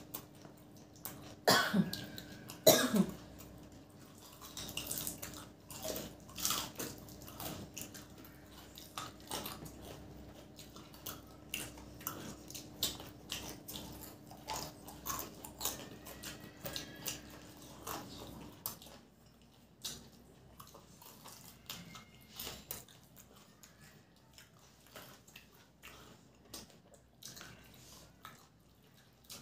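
Two loud coughs near the start, then close-miked eating of fried samosas: many small crunching and chewing clicks. A faint steady hum stops about two-thirds of the way through.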